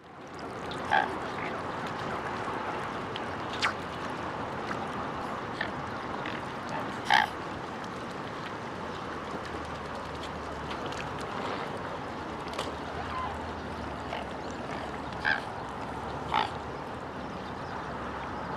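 Mute swans giving short, nasal calls, about half a dozen spread through, the loudest about seven seconds in, over a steady background hiss.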